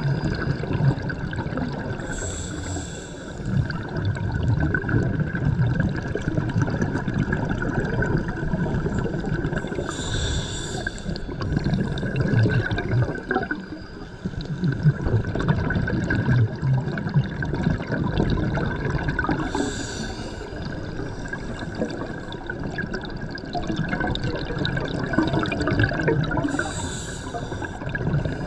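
Scuba diver breathing through a regulator underwater. A short hiss of inhalation comes about every eight seconds, four times, with a continuous low bubbling and gurgling of exhaled air in between.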